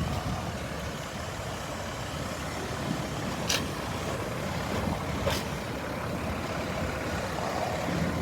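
Heavy-duty pickup truck running with a steady low rumble, with two short sharp clicks, one about three and a half seconds in and the other near five seconds.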